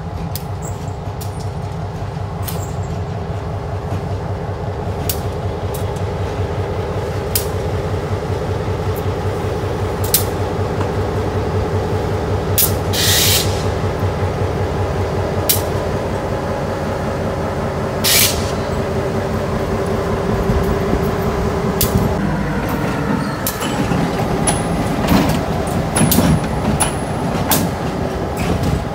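EMD SW1500 switcher locomotive's 12-cylinder diesel engine running steadily as the locomotive rolls slowly closer, growing louder. Sharp clicks and two short hisses of air come along the way, and the sound changes about three-quarters of the way through as it passes.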